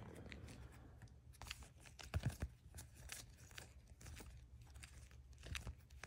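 Faint rustling and clicking of plastic-sleeved trading cards being handled and flipped through by hand, with a slightly louder cluster of clicks a little over two seconds in.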